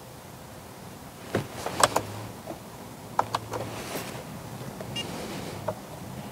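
A few scattered light clicks and knocks, the loudest close together near two seconds in, over a faint low hum that comes and goes.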